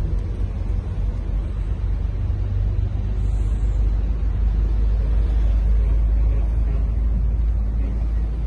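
Heavy diesel engine idling: a steady low rumble.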